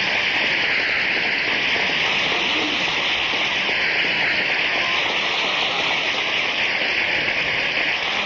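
Banquet audience applauding steadily at the end of a comedian's monologue.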